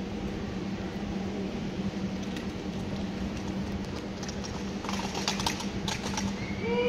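Rifle drill by the Kremlin Presidential Regiment honour guard: a quick, irregular run of sharp clacks and knocks about four and a half seconds in, over a steady low hum.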